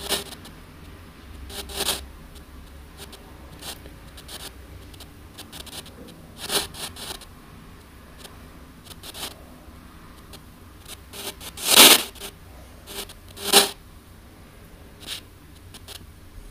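ANC-Mini handheld radio ghost box putting out short crackling bursts of static over a low steady hiss, the loudest about twelve seconds in; the uploader hears in them the words "they help you".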